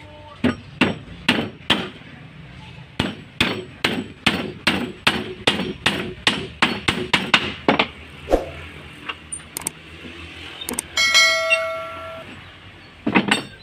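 Hammer driving nails through a wooden molding strip into a plywood boat hull panel, tacking it on: runs of sharp blows, two to three a second. About eleven seconds in comes a single ringing metallic clang, then two more blows near the end.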